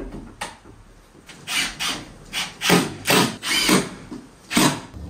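Cordless drill/driver driving screws into a plywood wall in a quick series of short bursts.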